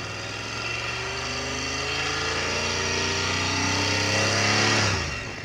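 BMW F 900 R's parallel-twin engine on its stock exhaust, held at raised revs for a stationary noise test, its pitch and loudness creeping up slowly. About five seconds in the throttle is snapped shut and the revs drop quickly.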